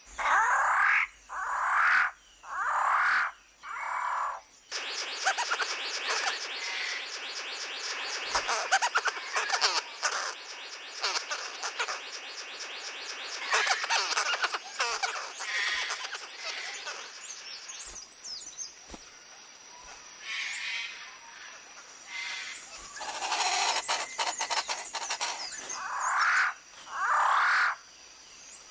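Tropical rainforest chorus of birds, frogs and insects. A bird gives loud calls four times at the start and again several times near the end.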